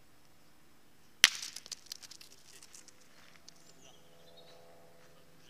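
Thrown steel pétanque boule (Obut Match, 75 mm, 700 g) striking another boule about a second in with one sharp metallic clack, followed by a spatter of smaller clicks as the boules and gravel scatter and settle.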